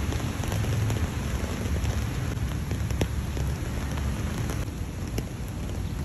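Steady rain, an even hiss with scattered drop impacts over a low rumble.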